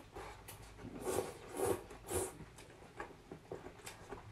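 People slurping rice noodles from hot soup, with a few short wet slurps about half a second apart.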